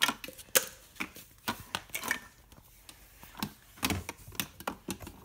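Small toy pieces being handled, making a run of irregular light clicks and knocks.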